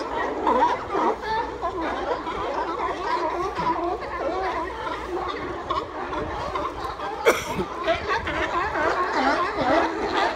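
Many California sea lions barking at once, calls overlapping continuously; this incessant barking is how males push rivals off the haul-out docks. A single sharp click cuts through about seven seconds in.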